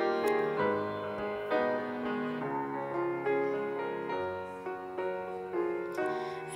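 Slow piano playing an instrumental interlude of a hymn between sung lines, notes changing about every half second.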